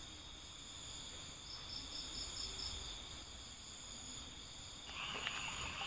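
Insects, crickets among them, calling faintly with steady high trills. One chirps in a quick pulsed series, about five pulses a second. A louder rasping insect call joins near the end.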